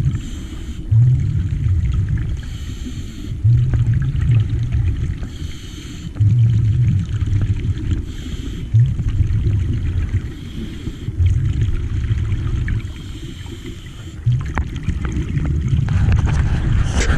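Diver breathing underwater through a regulator: a hissing inhale alternates with a low bubbling exhale, one breath every two to three seconds.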